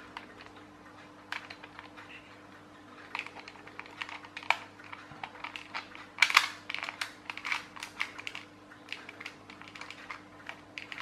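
Plastic gears of a clockwork toy tractor's mechanism clicking irregularly as they are worked by hand. The clicks are sparse at first, grow busier from about three seconds in and are loudest a little past the middle. The clicking is taken for loose or broken gear teeth.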